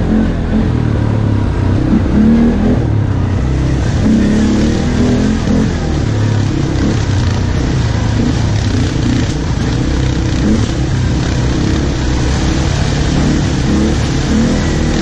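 ATV engine running as it is ridden slowly along a rough dirt trail, its note wavering up and down with the throttle.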